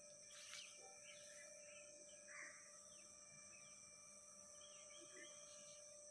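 Near silence: faint outdoor ambience of scattered bird chirps over a steady high insect drone.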